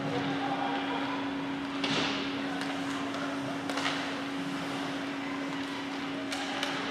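A steady mechanical hum with a few scattered knocks and clicks.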